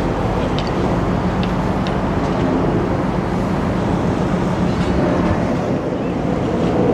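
Engine noise running steadily, with a few faint clicks in the first two seconds.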